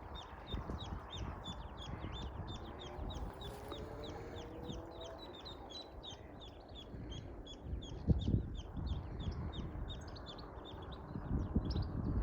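Mallard ducklings peeping: many short, high, downward-slurred calls, several a second, over a low rumble, with a couple of knocks about eight seconds in.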